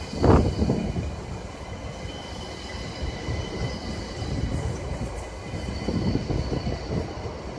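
GYSEV Stadler KISS 'Ventus' double-deck electric multiple unit moving along the platform, with a loud clatter of wheels on the rails just after the start. After that comes a steady rumble of the wheels, under a steady high whine from the traction drive.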